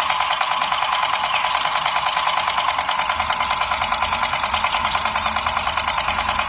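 Toy tractor's small motor and gears buzzing steadily with a fast, even pulse as it pulls a tank trailer through mud.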